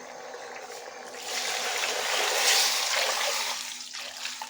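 Water being poured into a cooking pot of yam pieces and ingredients, a steady pouring splash that starts about a second in and tails off near the end.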